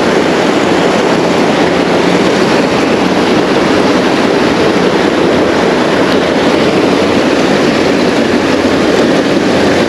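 Steady rushing of creek water running high after heavy rain, a loud even noise.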